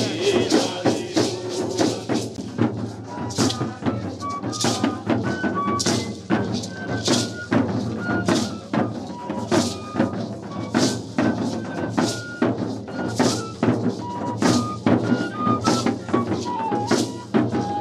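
Traditional indigenous music: hand rattles (maracás) shaken in a steady rhythm, with short high piping notes over them and a brief falling run near the end.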